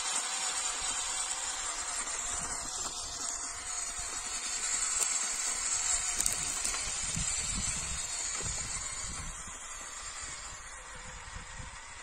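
Small electric RC scale jeep (JJRC Q65 Willys) driving over dry, stony dirt: a steady hissing whir of its motor and gears with tyre noise, growing fainter over the last few seconds as it moves away. Irregular low thuds in the second half.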